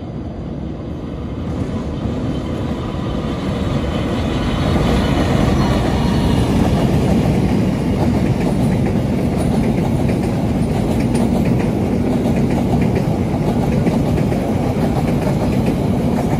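Diesel-hauled passenger train crossing a steel railway bridge. The rumble grows louder over the first few seconds as the train nears, then the coaches' wheels clatter steadily over the rails as they pass close by.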